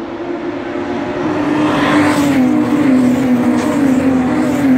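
A BMW race car's engine approaching at speed, growing steadily louder as it nears. Its note drifts slightly lower in pitch as it comes.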